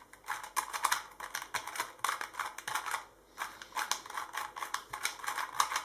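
Bandaged 2x2 puzzle cube turned quickly by hand during a solve: rapid clicking and clacking of the plastic layers, in two runs with a short pause about three seconds in. The cube is a little tight and not yet lubricated.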